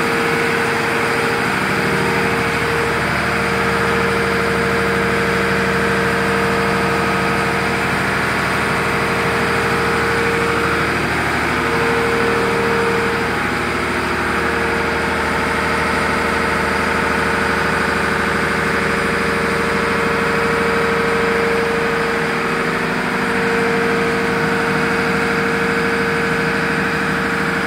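A tug's large inline multi-cylinder marine diesel engine idling steadily with a loud, even hum, heard up close inside the engine room.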